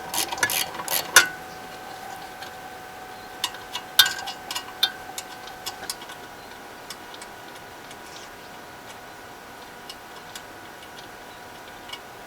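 Irregular sharp clicks and light metallic taps from a socket ratchet and tools undoing the bolts on a generator's carburettor. They are densest about a second in and again around four seconds, then thin out to an odd click. A faint steady tone runs underneath for the first half.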